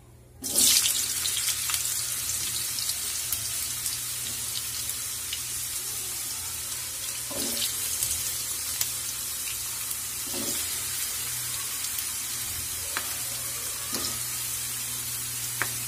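Potato cubes dropped into hot mustard oil and deep-frying in a pan: a sudden sizzle starts about half a second in and carries on steadily, with a few soft knocks as more pieces go in.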